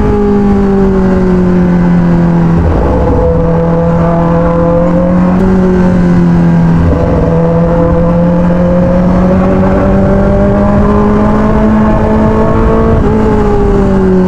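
Kawasaki ZX-10R's inline-four engine heard from the saddle while riding in traffic, its pitch easing down at first, stepping lower about three seconds in, climbing slowly through the middle, then dropping sharply near the end as the revs fall away. A low wind rumble runs under it.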